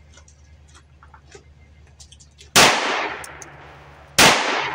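Two 9mm pistol shots from a Walther PPQ 5-inch firing Winchester M1152 military ammunition, about a second and a half apart, each followed by a long echoing tail.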